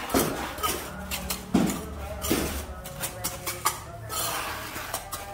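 Irregular scraping and clinking of hand work on concrete paving blocks and mortar, a string of short strokes and knocks.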